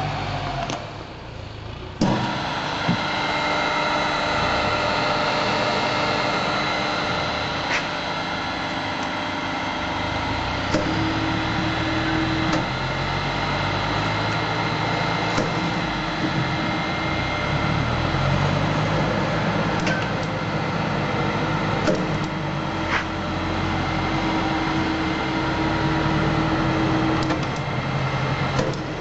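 Winter MF25X automatic knife grinding machine running: a steady mechanical hum with several steady tones, which jumps up sharply about two seconds in. A higher tone comes and goes, and there are a few sharp clicks.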